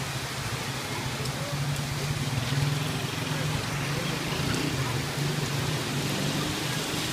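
Heavy rain falling steadily and hissing on the ground, with a low steady hum underneath.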